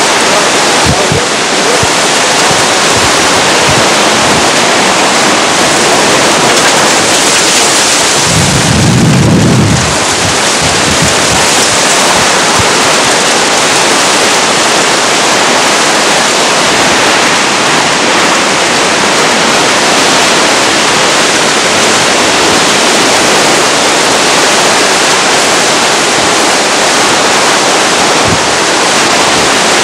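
Hurricane winds and heavy driving rain making a loud, steady rushing noise on a camcorder microphone. About eight seconds in, a stronger gust buffets the microphone with a low rumble for about two seconds.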